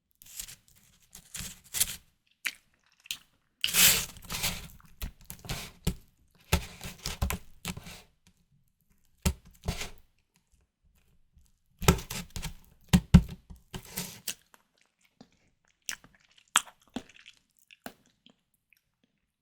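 Close-miked eating sounds of white tiger prawns being bitten and chewed: bursts of wet, crackling mouth clicks separated by short pauses, thinning out to a few single clicks near the end.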